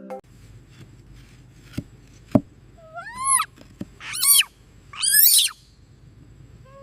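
A few faint clicks over a low steady hum, then three high-pitched, rising-and-falling animal cries, each about half a second long.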